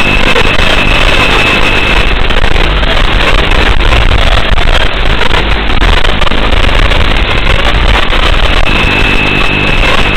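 Tiny whoop micro quadcopter's brushed 6x17 motors and propellers buzzing in flight, a loud, steady, rough drone.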